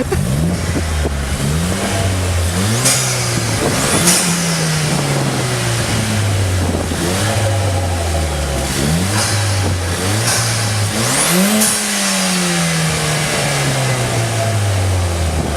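Car engine being revved repeatedly, each throttle blip climbing quickly and sinking back slowly. A high whine climbs and falls with a few of the bigger revs.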